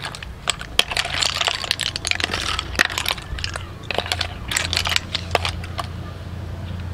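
Cooked river snail shells clicking and clattering against each other and a metal tray as a fork stirs and picks through them, with crunchy crackling and many sharp clicks.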